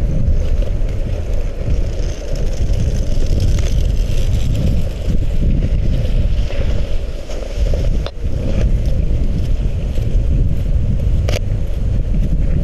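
Wind buffeting the microphone, a loud uneven low rumble, with two sharp clicks in the second half.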